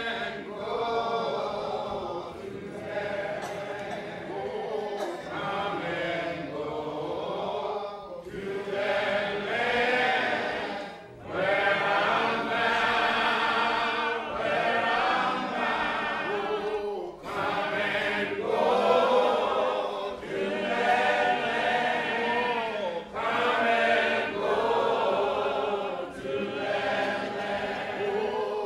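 A choir singing on the soundtrack, phrase after phrase with brief breaks between them.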